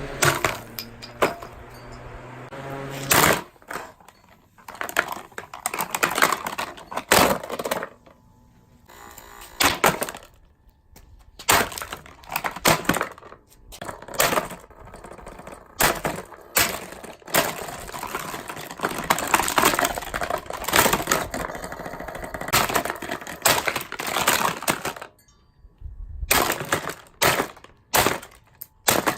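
St. Regis BF-1000 mini box fan being smashed apart: a steady hum for about the first three seconds, then repeated loud cracks, crunches and knocks of breaking plastic at irregular intervals, with two short pauses.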